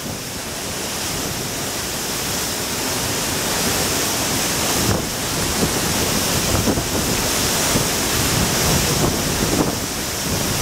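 Waterfall's water rushing in a steady, loud wash, with wind buffeting the microphone.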